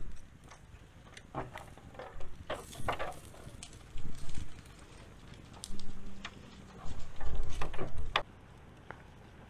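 A small campfire under a pot being tended: irregular clicks and knocks of sticks and coals being shifted, with crackling, and a louder cluster of knocks and thuds near the end.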